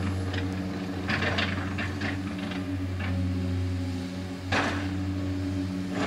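Hydraulic excavator working: a steady diesel engine hum, with a cluster of knocks and scrapes about a second in and a louder scrape about four and a half seconds in.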